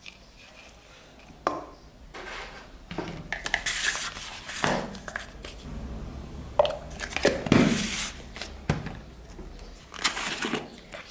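A spoon and plastic spice containers tap and scrape against an aluminium pressure cooker as spices are added. There are several sharp knocks, with short rustling shakes in between.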